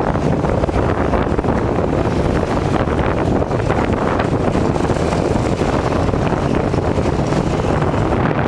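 Steady wind buffeting the microphone with road and engine noise from a motorcycle under way.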